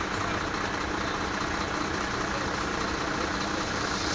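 Steady running of motor vehicle engines at idle or low speed, a constant low rumble under an even hiss with no distinct events.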